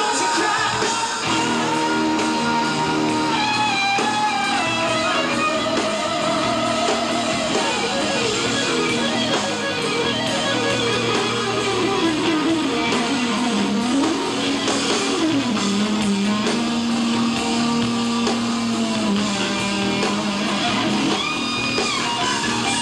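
Live rock concert music: an electric lead guitar plays a slow melody over steady band backing. It holds long notes with a wavering vibrato, runs down in long falling phrases, and settles on a long low held note late on.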